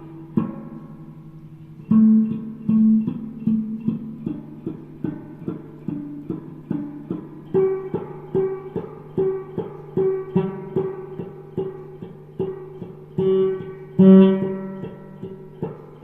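Guitar playing: a steady run of plucked notes over a held low note, with a louder note about two seconds in and another near the end.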